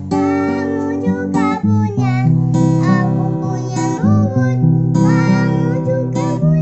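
A young child singing an Indonesian children's song, accompanied by a strummed acoustic guitar.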